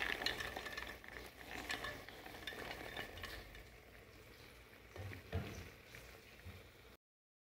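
White beans poured from a plastic bowl into an aluminium pot, a quick run of small clicks and rattles that thins out over the first few seconds. A couple of knocks follow about five seconds in.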